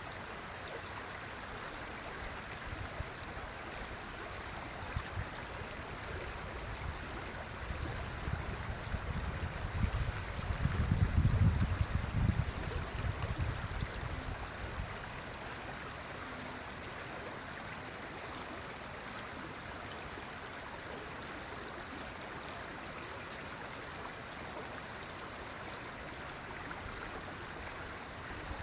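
River water flowing steadily, a continuous rushing. From about eight to fourteen seconds in, a louder low rumble swells and then fades back.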